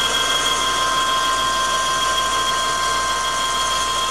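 Milling machine running a boring head that cuts out a cylinder of a Subaru EJ257 engine block, a steady machining sound with a constant high-pitched whine.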